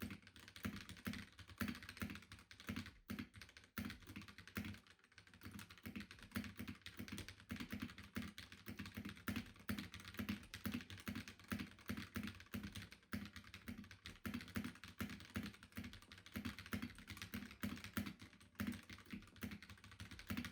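Fast, continuous typing on a mechanical keyboard fitted with Akko CS Rose Red linear switches: a steady clatter of keystrokes with a little bit of thunk.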